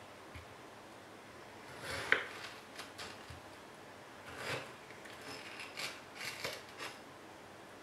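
Kitchen knife cutting through mango flesh and scraping on a plastic cutting board: a sharp tap about two seconds in, then a run of short cutting strokes.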